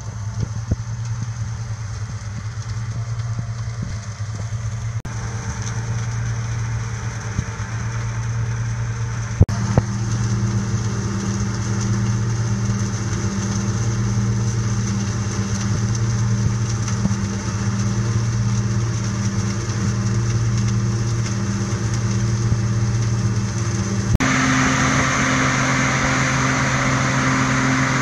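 Engines of self-propelled snap bean harvesters running steadily at working speed, a constant low drone whose pitch and tone change abruptly a few times.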